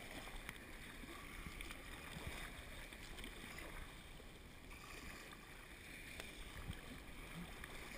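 Water sloshing and splashing around an inflatable kayak being paddled through choppy surf, with wind on the microphone. A few faint knocks come through.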